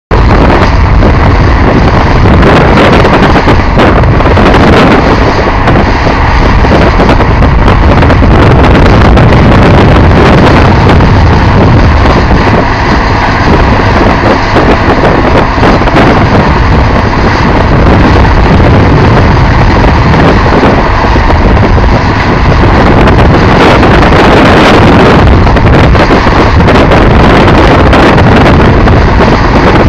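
Truck-mounted drill rig running steadily at full working noise, its engine and drilling machinery very loud without a break.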